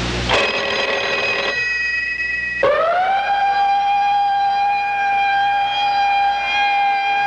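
A loud, siren-like pitched tone with many overtones. A high steady tone, with hiss under it for the first second or so, gives way about two and a half seconds in to a lower tone that slides up quickly and then holds steady.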